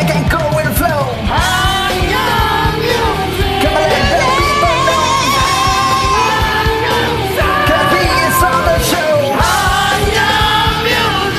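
Music: a rock-style song with a singing voice over drums.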